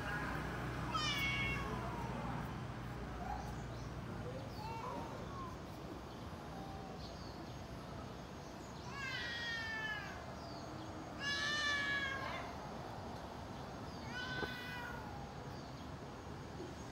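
A cat meowing several times: a call about a second in, then three more in the second half, the loudest about two thirds of the way through, each falling in pitch.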